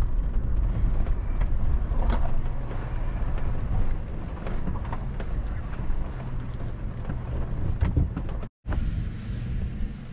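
Chevrolet Avalanche pickup's V8 running at low speed on a rough, rocky trail, with tyres crunching over stones and scattered knocks from rocks under the truck. The sound breaks off for a moment near the end.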